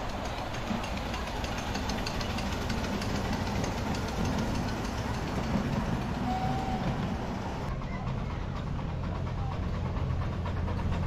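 7¼-inch gauge miniature railway train running along the track, its wheels clicking over the rail joints over the steady hum of the locomotive. The sound changes about eight seconds in as a second miniature train is heard approaching.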